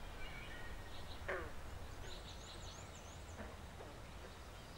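Faint outdoor ambience with birds calling: scattered chirps, a quick falling call about a second in, and a high rapid trill in the middle, over a steady low background noise.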